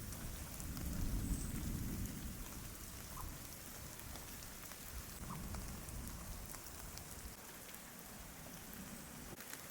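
Light rain pattering and dripping, with a low rumble that swells about a second in and again briefly about five seconds in.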